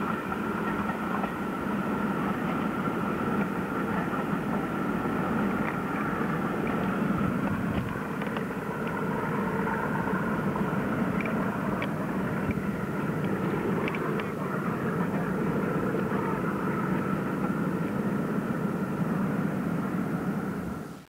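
Diesel-hauled freight train of empty car-carrier wagons rumbling steadily as it moves away down the line, with a few faint clicks midway through. The sound fades out at the very end.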